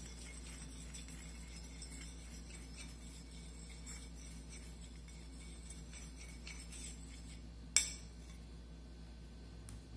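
Light clinks and ticks of painting tools and containers being handled, with one sharp click about eight seconds in, over a steady low hum.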